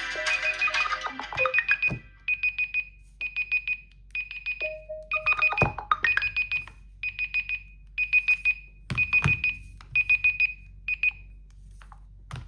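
A melodic smartphone ringtone ends about two seconds in. A phone's beeping alert follows: repeated bursts of a few rapid high beeps, roughly every 0.7 seconds, stopping about a second before the end. A few soft thumps are heard among the beeps.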